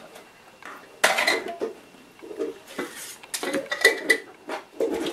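Kitchen dishes and utensils clattering and clinking as they are handled on a countertop, in a string of separate knocks, the loudest about a second in and again near four seconds.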